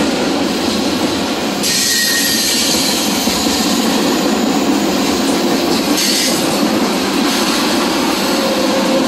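Freight cars of the CSX M403 manifest train (covered hoppers, tank cars, flatcars) passing close by: a steady rumble and rattle of steel wheels on rail. A brighter, hissing wheel noise rises for a few seconds from about two seconds in.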